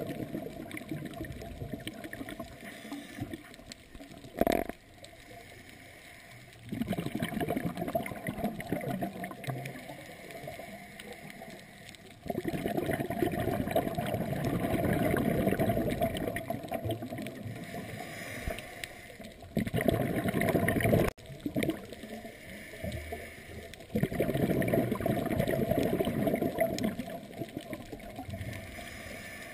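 Scuba diver's exhaled bubbles from the regulator gurgling underwater, in several long bursts of a few seconds each with quieter gaps for the inhalations between them. A single sharp knock about four seconds in.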